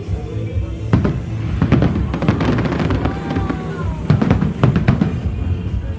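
Fireworks shells bursting in a rapid series of sharp bangs with a deep rumble, the loudest about a second in and again near the end, over the show's music.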